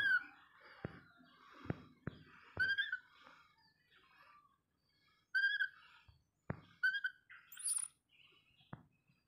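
Baby macaque giving a string of short, high-pitched calls, four or five of them a second or two apart, each rising slightly and then dropping, with a higher, thinner squeal about three-quarters of the way through. A few faint taps fall between the calls.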